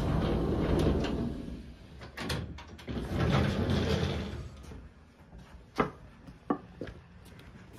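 Sliding glass patio door rumbling along its track as it is pushed open, in two long pushes, followed by a few sharp footsteps.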